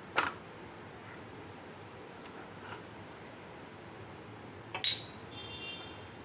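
Quiet handling of a raw whole chicken being rubbed with crushed chilli in a steel bowl. A sharp click comes just after the start, and a louder metallic clink with a brief ring comes about five seconds in.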